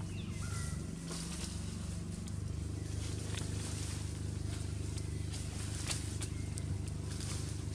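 A steady low hum runs underneath scattered crackles and clicks from dry leaf litter. A short, falling high squeak sounds about half a second in.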